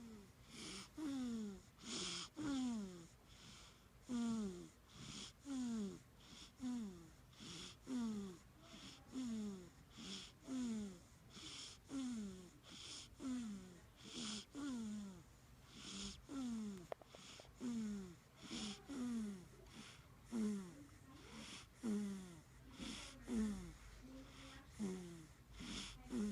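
A one-month-old baby snoring in sleep: on almost every breath a short, squeaky, wheezy note falls in pitch, with a breathy hiss, repeating rapidly less than a second apart.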